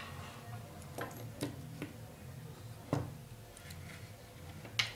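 A few light, sharp clicks and knocks from handling a TV power supply circuit board on a table, the loudest about three seconds in.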